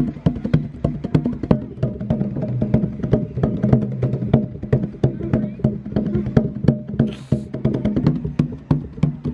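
Hand drums with stretched hide heads struck with bare hands in a quick, uneven rhythm of several strikes a second.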